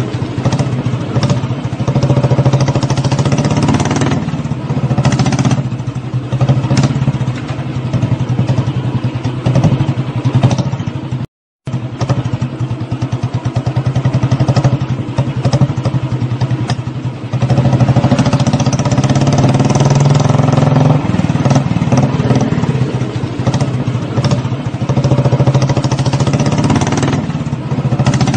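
Royal Enfield single-cylinder motorcycle engine running with a rapid, even exhaust beat. It is revved up and back down a little past the middle. The sound cuts out for a split second about eleven seconds in.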